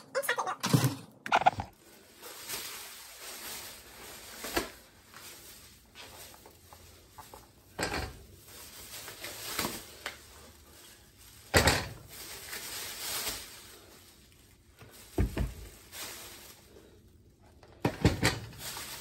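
Plastic grocery bags rustling as packaged food is taken out and handled, with a few sharp knocks and thunks at irregular intervals as items are set down.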